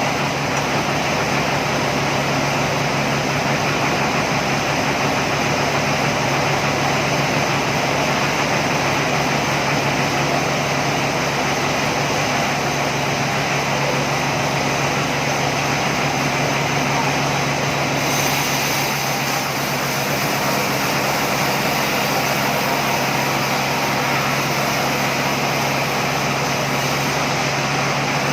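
Sawmill machinery running steadily: a continuous mechanical drone with a low hum and a broad hiss, the hiss turning a little brighter about two-thirds of the way through.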